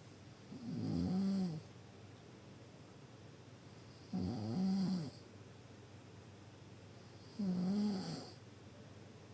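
Deep snoring: three snores, each about a second long, coming steadily about every three seconds.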